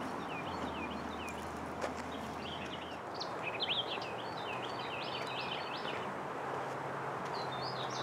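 Outdoor ambience of several birds chirping and singing over a steady background hiss, with a brief busier run of chirps about three and a half seconds in.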